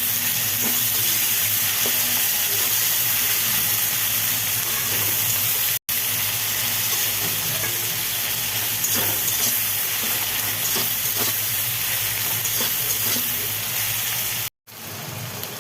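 Onions with ginger-garlic paste sizzling as they fry in oil in a pan, a steady loud hiss with a few faint clicks of stirring. The sound cuts out abruptly twice, about six seconds in and near the end.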